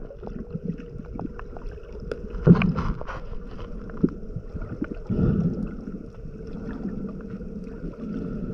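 Underwater sound picked up by a camera held just below the sea surface: a muffled rush of water with a faint steady hum running through it, and louder swishes of water about two and a half and five seconds in.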